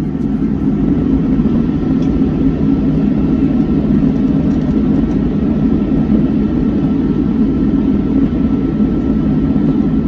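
Steady rumble of an airliner cabin in flight, with a faint steady whine above it.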